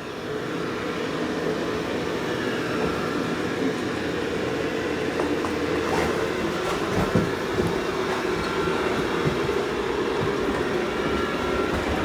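Dreame L20 Ultra robot vacuum-mop running, its rotating mop pads spinning as it cleans the floor: a steady mechanical hum with a few faint ticks.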